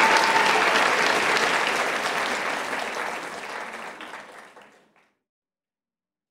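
Audience applauding, fading out to silence about five seconds in.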